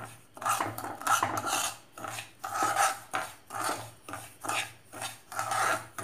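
A spoon stirring and scraping dry roasted semolina and sugar around a non-stick pan, in a steady rhythm of about ten raspy strokes: the sugar being mixed into the rava for kesari bath.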